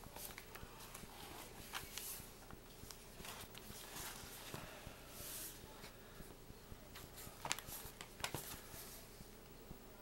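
Faint rustling and soft taps of paper pages in a thick, stuffed junk journal being turned and handled, with a few sharp clicks.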